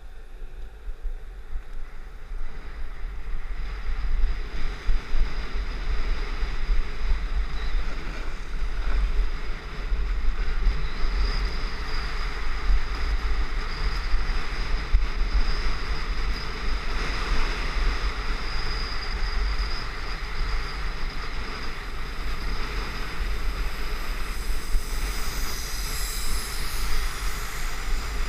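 Wind buffeting a helmet-mounted action camera's microphone, with a steady hiss of snow scraping under the rider during a fast descent of a groomed ski run. The noise swells over the first few seconds as speed builds, then holds.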